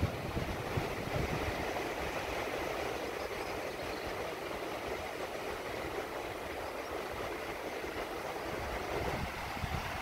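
Atlantic surf washing onto the shore as a steady rush, with wind buffeting the microphone in low gusts.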